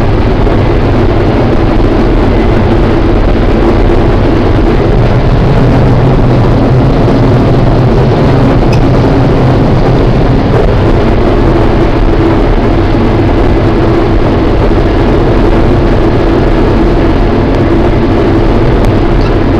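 New Holland TR70 combine running steadily under load while harvesting corn, its engine, threshing rotor and machinery making a loud, even hum. The rotor is set a little faster than normal for wet, hard-shelling corn.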